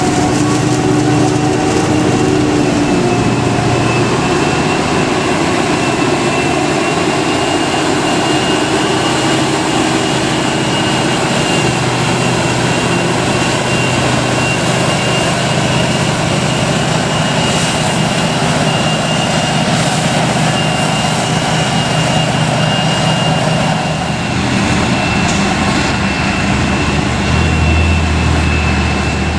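Krone Big X 700 forage harvester running under full load, chopping maize and blowing the chopped crop through its spout into a trailer alongside. It is a loud, steady rush of engine and crop-flow noise with a thin, steady high whine. A deeper rumble comes in near the end.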